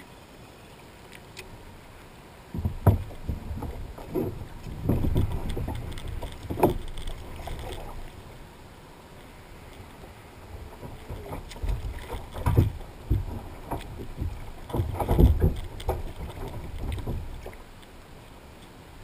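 Water splashing and hollow thumps and knocks against a plastic kayak hull as a dog is hauled out of the water and scrambles aboard, in two rough, uneven bursts.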